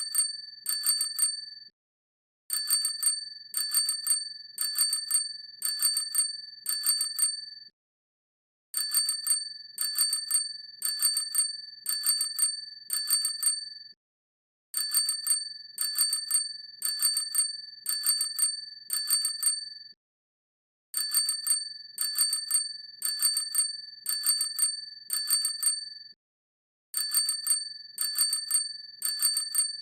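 Bicycle bell ringing in quick trills of several rapid strikes. The trills come about five to a set, and the sets are separated by roughly a second of silence. The ring holds a steady, high pitch.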